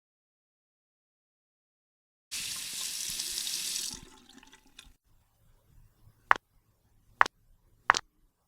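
A sink faucet runs for under two seconds, starting a little over two seconds in, then shuts off. Three sharp clicks follow, a bit under a second apart.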